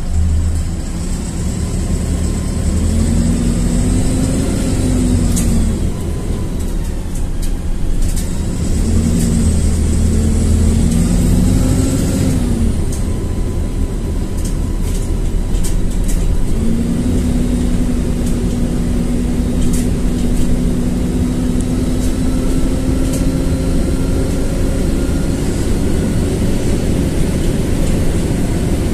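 LiAZ-4292.60 city bus engine pulling, heard aboard the bus. Its note rises and drops twice as the bus gathers speed through the gears, then holds a steady, slowly climbing drone from a little past halfway, with light rattles over it.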